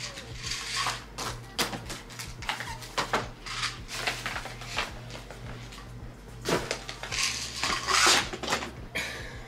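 Small objects being handled and set down on a bed tray, with light clatters and clinks among irregular rustling of bedding and paper, over a steady low hum.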